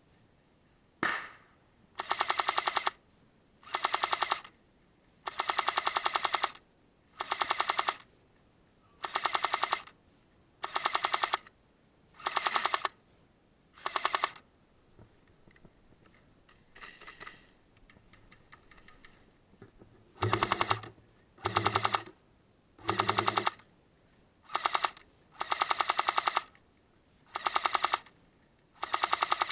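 Airsoft M60 firing short bursts of rapid automatic fire, one after another every second or two, with a break of about five seconds around the middle before the bursts resume.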